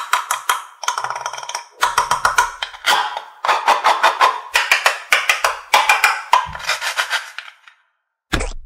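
Rapid crackling clicks in a series of short stretches with brief gaps: the Velcro-joined halves of a toy cutting-fruit orange being pulled apart and pressed back together.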